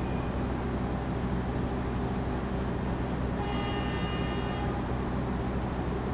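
Standing Argo Sindoro express train with its diesel engines idling, a steady low drone. About three and a half seconds in, a brief high tone with several overtones sounds for about a second.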